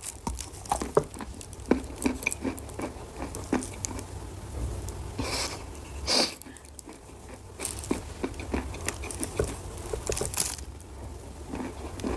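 Edible chalk being bitten and chewed close to the microphone: a run of small, irregular crunching cracks, with a few brief hissing rushes in the middle and near the end.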